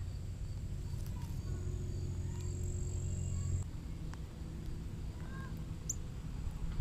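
Outdoor yard ambience: a steady low hum, like a distant engine, that drops away about three and a half seconds in, with a few faint bird chirps and one sharp high chirp near the end.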